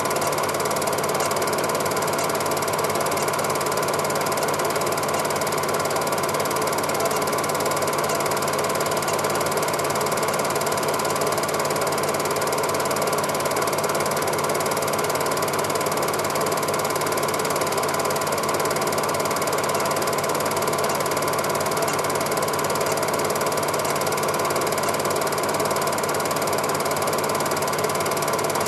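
Cine film projector running steadily: the motor and film-advance mechanism make an even mechanical whirr that does not change.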